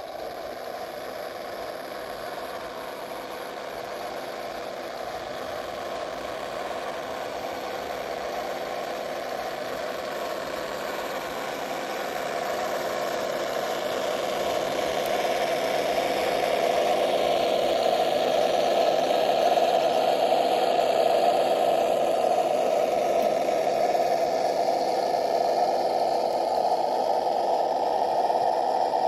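Simulated truck engine sound from the Das Mikro TBS Mini sound module in an RC scale GAZ-66, a steady idle-like engine note with a knocking rattle. It grows gradually louder as the truck crawls closer.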